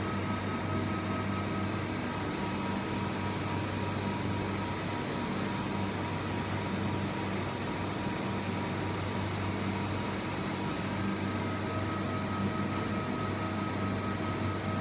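Steady machine hum with several constant tones over a soft hiss, from a CNC vertical machining center standing powered up, with no change in pitch or level.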